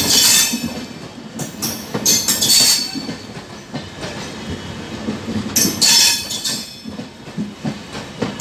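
LHB passenger coaches rolling past close by, wheels clattering over the rail joints. A louder burst of clatter with a thin high squeal comes each time a set of bogies passes, about every three seconds.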